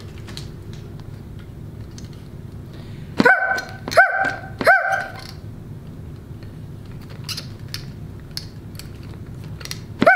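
Three quick dog barks about two-thirds of a second apart, a little over three seconds in, and a fourth right at the end. They are the voice of a marionette dog puppet, and faint clicks come and go throughout.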